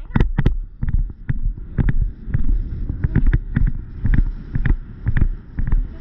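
A horse's hoofbeats on turf, about two strides a second in a steady rhythm, with the tack rattling on each stride and wind buffeting the microphone.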